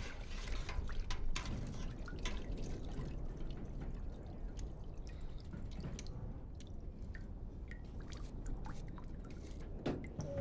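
Water dripping at irregular intervals over a low, steady rumble.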